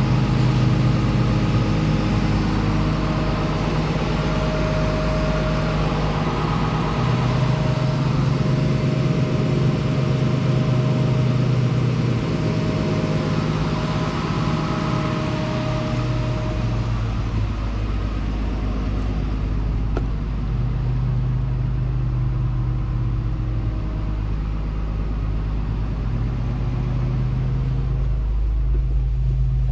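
Komatsu PC210LC-11 excavator's six-cylinder diesel engine idling steadily.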